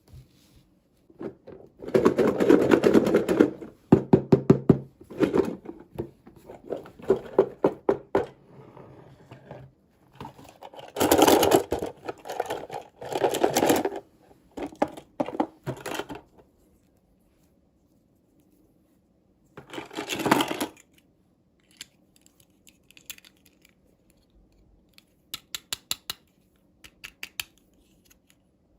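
Small plastic toy pieces and packaging being handled and opened: several bursts of rapid rattling and clicking, then scattered single clicks and taps.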